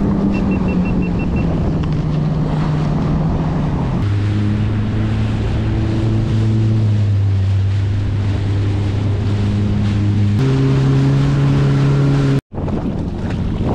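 Jet ski engine running under way at steady speed, with wind buffeting the microphone and water rushing past the hull. The engine note drops about four seconds in and steps up again near ten seconds; the sound cuts out for an instant near the end.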